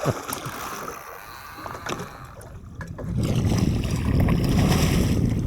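Water sloshing and wind noise aboard a small boat at sea, with a few faint knocks. It grows louder about three seconds in.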